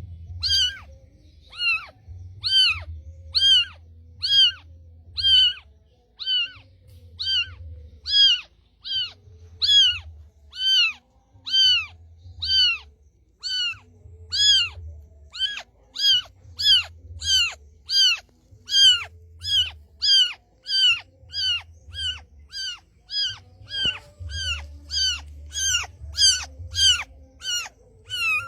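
A cat meowing over and over: short, high-pitched mews that rise and fall, about one and a half to two a second, getting a little faster toward the end.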